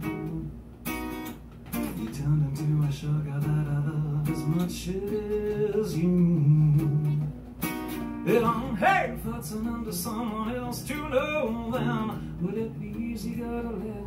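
Acoustic guitar strummed and picked in a live song, with a man's singing voice over it in places, mostly in the second half.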